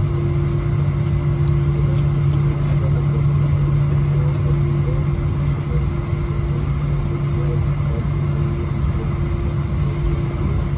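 Steady cabin drone inside an Airbus A320-231: an even rush of noise with a low, constant hum.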